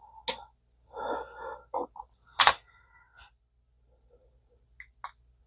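Handling noise from small metal parts of a vintage Zebco spincast reel being worked by hand: two sharp clicks about two seconds apart, with quieter rustling and scraping between them and a few faint ticks near the end.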